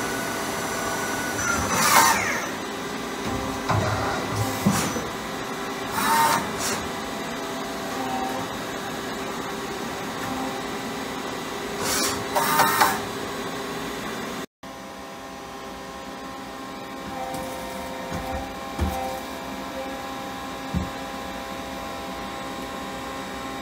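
Takisawa EX-110 CNC lathe running a cutting cycle on brass: a steady machine hum with several whining tones, broken a few times in the first half by short, sharp clattering noises. After a brief break about halfway through, the hum carries on steadily with only a few faint knocks.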